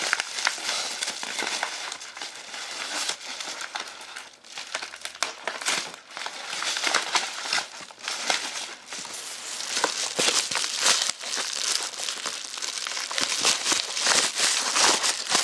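Plastic bubble mailer being torn open and handled: continuous crinkling and crackling of the packaging, with short rips and rustles.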